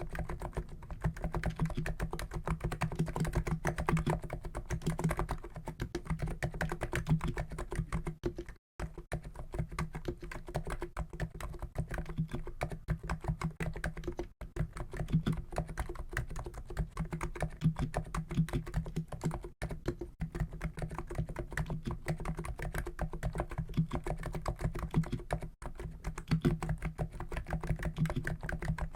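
Fast, continuous typing on a COX Endeavour keyboard with 50 g Noppoo Niz electro-capacitive (EC) switches: a dense, unbroken run of keystrokes, with a few brief breaks of well under a second.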